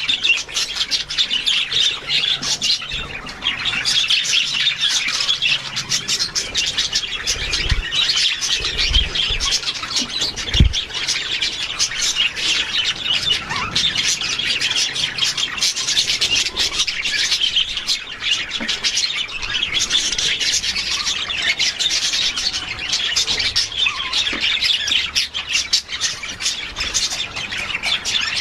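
A flock of budgerigars chattering and warbling without a break, many birds calling over one another. A short low thump comes about ten seconds in.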